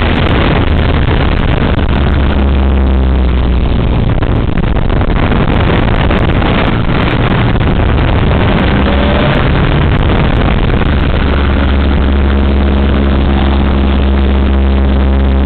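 Tiger Moth biplane's inverted four-cylinder engine running under a heavy rush of noise during a loop. Its steady note smears and wavers through the middle and settles back to an even drone for the last few seconds.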